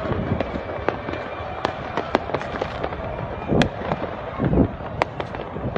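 Distant fireworks and firecrackers going off across a city, with sharp pops and cracks at irregular intervals over a steady background noise. A couple of louder low rumbles come in the second half.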